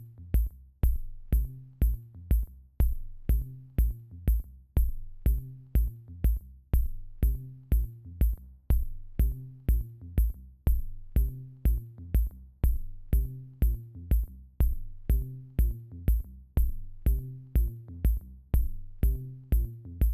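Background electronic music with a steady drum-machine kick, about two beats a second, over a low bass line.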